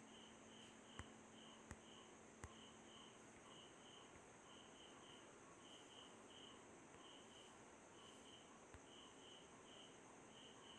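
Near silence with a faint, high chirp repeating in short pairs about every half second, typical of a cricket. Three soft clicks come in the first few seconds and one more near the end.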